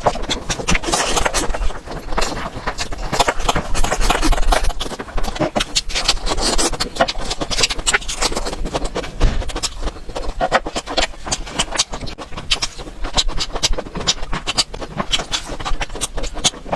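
Close-miked chewing of food, a dense run of crisp crackles and wet clicks with hardly a pause.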